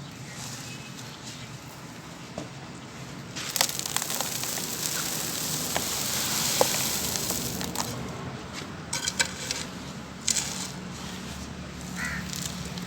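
Crumbled charcoal being poured and crushed. After a few quiet seconds comes a dense, gritty hiss of falling grains peppered with sharp crunches. It thins after several seconds into scattered crunches and clicks.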